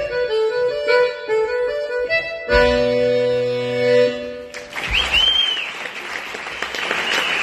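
Button accordion playing the last bars of a polka and ending on a long held chord. About four and a half seconds in, audience applause breaks out, with one rising-and-falling whistle from the crowd.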